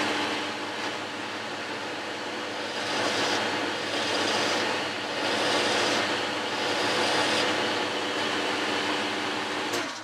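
Boxford lathe running with a steady motor hum as a hand file is held against the spinning metal workpiece to chamfer its corner, with rasping file strokes swelling in and out from about three seconds in. The lathe is switched off and runs down just before the end.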